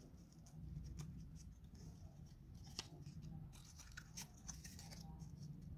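Faint light clicks and rubbing of thin laser-cut plywood model parts being handled and fitted together by hand, over a low steady hum.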